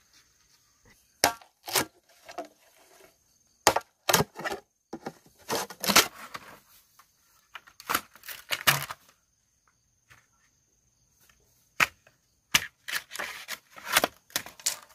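Series of sharp wooden knocks and chopping strikes, irregular and in clusters, with a pause of about two seconds around ten seconds in.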